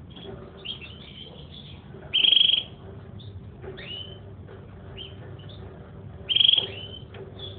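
Domestic canary singing: short chirps and quick rising notes, broken by two loud, very rapid trills about two and six seconds in.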